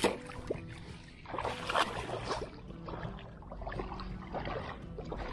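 Hooked carp splashing and thrashing in the water as it is fought toward the bank, in irregular sloshing surges.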